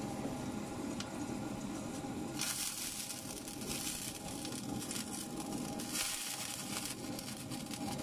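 Handheld butane gas torch burning steadily against a fridge evaporator plate, heating the metal-epoxy patch over a puncture so that it can be burnt off. It is a continuous hiss that grows brighter twice, about two and a half seconds in and again around six seconds.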